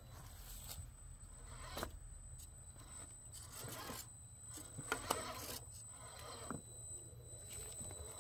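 Electric RC rock crawler built on a Redcat Wendigo chassis, its motor and gears whirring faintly in short spurts as it crawls over rocks. There are scrapes and a few sharp clicks from tyres and chassis on stone, about two seconds in and again around five seconds in.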